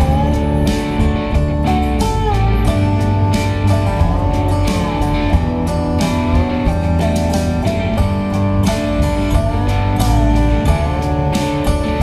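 Background music led by guitar, with sliding, bent notes over a steady beat.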